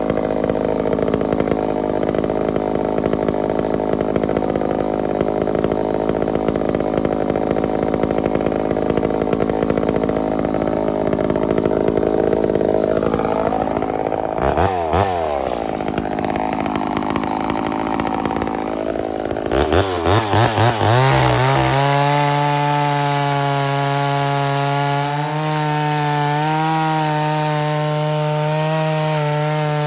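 Homelite Super XL-923 82cc two-stroke chainsaw at high revs. For roughly the first half it runs rough and dense under load, cutting wood. The revs then swing up and down for several seconds, and about two-thirds of the way in it settles into a steady, high-pitched wide-open whine with no load.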